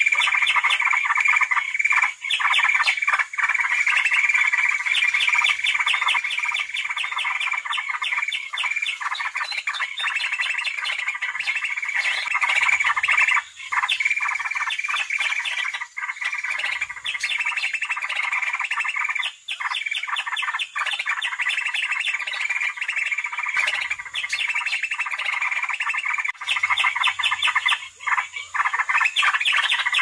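Green leafbird (cucak ijo) calls from a bird-trapping lure recording of fighting calls: a loud, dense, rapid chatter of repeated notes that runs almost without pause, with a few very short gaps.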